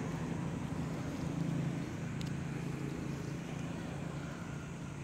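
A steady low engine hum, easing slightly in the second half.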